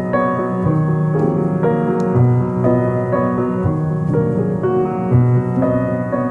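Background music: slow, gentle piano playing sustained chords.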